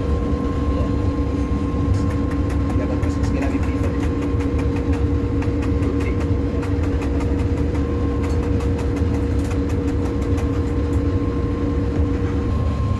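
Knife tapping in quick runs on a plastic cutting board as food is minced, over the steady low rumble and hum of the boat's engine.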